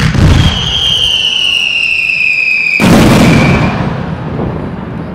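Fireworks going off: a sudden loud blast and a long high whistle that slides slowly down in pitch, then a second loud blast about three seconds in, fading into a low rumble.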